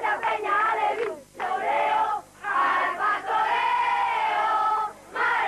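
A group of young boys chanting a football song in unison, with words including "al pastoreo". It comes in three phrases, the last one held on a long note.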